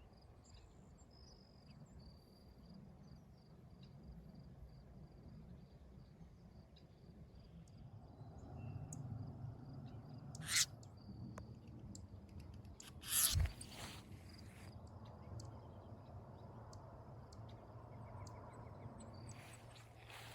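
Faint outdoor ambience: a thin, high, steady insect trill of crickets over a low rumble, broken by two short loud noises about halfway through.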